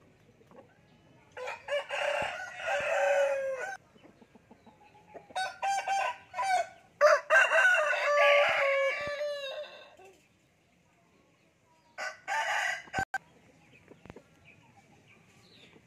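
Thai game roosters crowing several times in turn. The longest and loudest crow comes a little past halfway, with quiet gaps between the crows.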